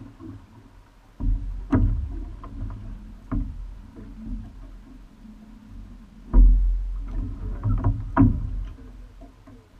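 Sculling shell being rowed: two strokes about five seconds apart, each a low rumble with sharp clicks and clunks from the oars and their oarlocks.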